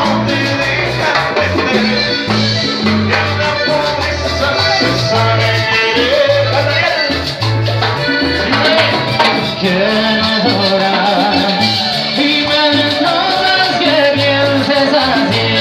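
Live band playing Latin dance music, with electric bass, drum kit and a steady run of low bass notes. A man's singing voice comes in about halfway through.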